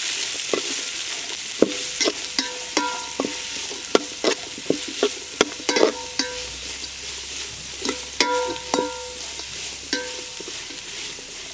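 Chopped vegetables sizzling as they stir-fry in oil in a large metal kadai, turned by a metal spatula. It gives a steady frying hiss, with many irregular sharp clinks that ring briefly each time the spatula strikes the side of the pan.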